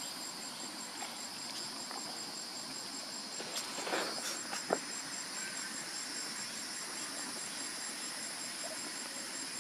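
Steady high-pitched insect chorus with a fast, even pulsing trill over it. A few short clicks and rustles come about four to five seconds in.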